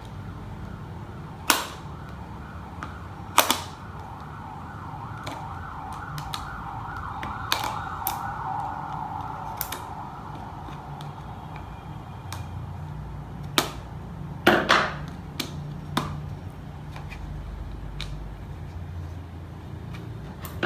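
Scissors cutting a thin, rigid clear plastic container: a series of sharp, irregularly spaced snaps and cracks as the plastic gives. A faint wavering tone runs behind it for several seconds in the first half.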